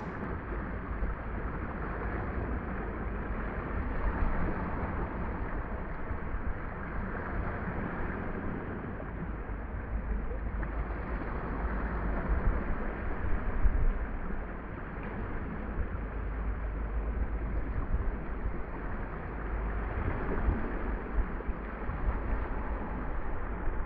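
Wind buffeting the microphone with a gusty low rumble, over the steady wash of small choppy waves on a lake.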